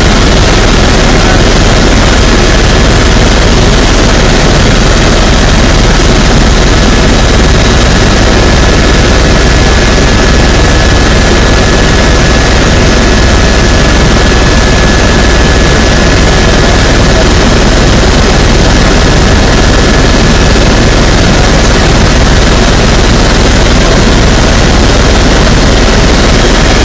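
Helicopter in flight heard from inside the cabin: a loud, unchanging drone of the engine and rotor, with a faint high whine held steady through the middle.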